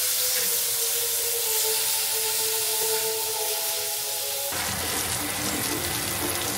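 Water running steadily from a tap, with music under it. About four and a half seconds in, the water sound changes and gets fuller and lower.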